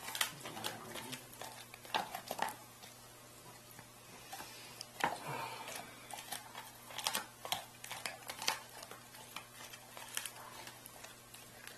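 A dog chewing frozen raw chicken, with irregular sharp crunches and cracks of teeth on the hard frozen meat.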